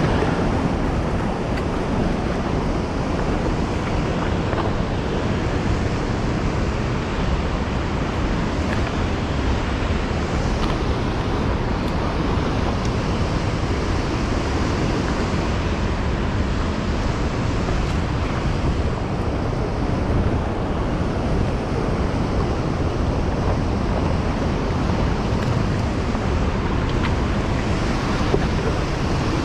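Steady rushing of fast river water falling below a large waterfall, an even roar with no pauses.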